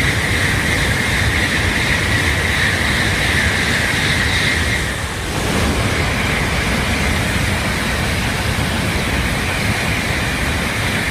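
Tokaido Shinkansen bullet train passing through the station at high speed without stopping: a loud, steady rush of air and wheels with a whistling tone over a low rumble, dipping briefly about five seconds in.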